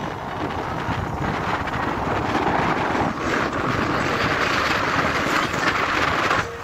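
Motorcycle riding at speed on a road, its engine and road noise mixed with wind rushing over the microphone; the rush gets louder from about three seconds in as the bike speeds up.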